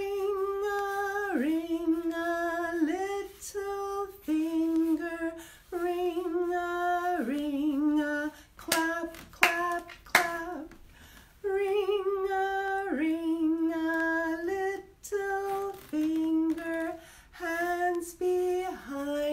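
A woman singing a children's fingerplay rhyme unaccompanied in long held notes, with three hand claps about nine seconds in.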